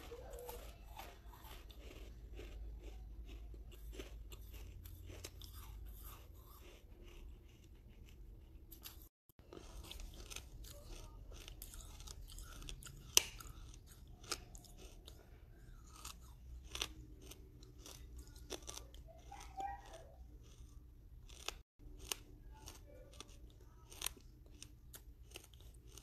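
Pieces of red brick being chewed: irregular crisp crunches and clicks, with one sharp, loud crack about halfway through and two brief gaps.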